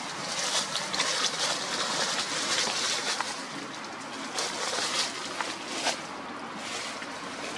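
Dry leaf litter rustling and crackling as a macaque rummages through it, with many small irregular crackles.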